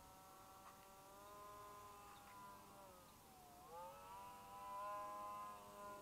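Faint, steady whine of the Hobbyking Mad Bird electric RC plane's motor in flight, its pitch dipping and then rising again about halfway through.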